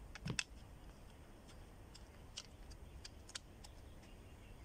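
Clicks and knocks from the loop antenna's mast and tripod mount being handled and fitted together. A quick cluster of clicks with a dull knock comes just after the start and is the loudest, followed by two single sharp ticks later on.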